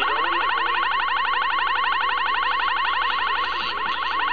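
Uniden Bearcat 980 SSB CB radio on channel 38 LSB receiving a steady, rapidly repeating rising chirp tone, about ten chirps a second.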